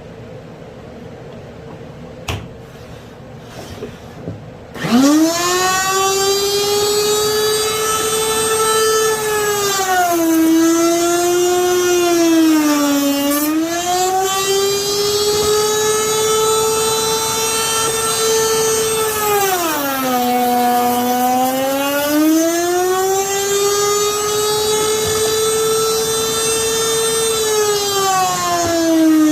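Router in a router table starting up about five seconds in and spinning at a high steady whine. The pitch sags twice as the bit takes load cutting wood, then the motor winds down near the end.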